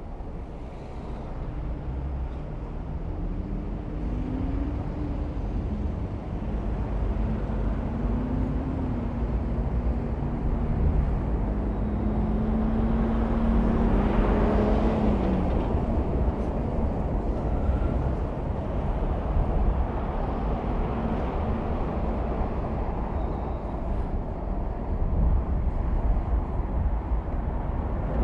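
Car driving through city traffic: a steady rumble of engine and tyres on the road, growing louder over the first half. An engine's pitch rises about four seconds in and again near the middle as it accelerates.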